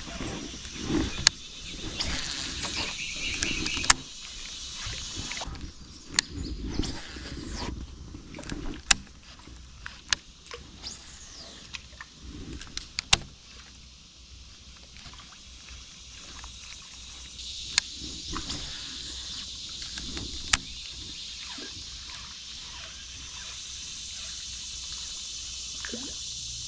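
Scattered knocks and clicks of gear being handled in a small fishing boat, over a steady high insect drone that swells up over the second half.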